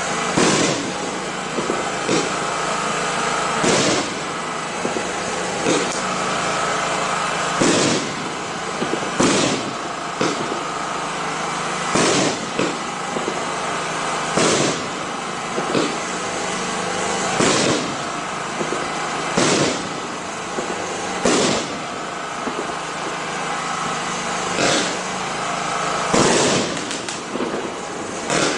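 Ardi Showbox Fascination pre-fused fireworks compound firing, one shot about every one and a half to two seconds over a steady hiss.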